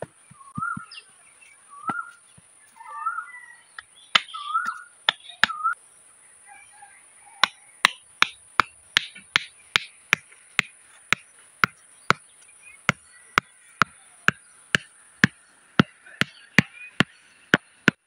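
A hammer strikes the top of a bamboo stake, driving it into the dirt. In the first few seconds the knocks are scattered among repeated short bird chirps; from about seven seconds in they come as steady blows, about two a second.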